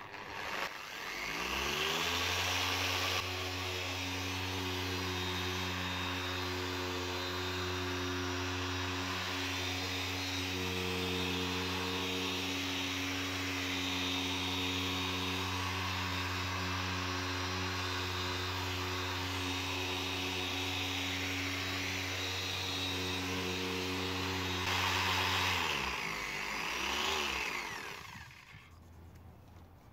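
Small corded rotary polisher with a foam pad, run against a plastic headlight lens to polish out the oxidation. It spins up in the first couple of seconds and runs steadily at one speed, then winds down near the end, followed by one short burst of the motor.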